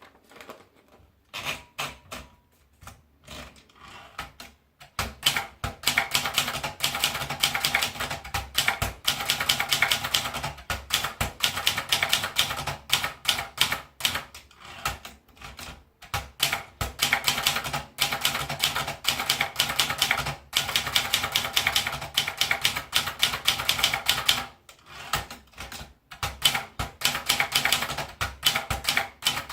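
Brother Deluxe 1510 manual portable typewriter being typed on: a few scattered keystrokes, then fast runs of key strikes broken by a couple of short pauses.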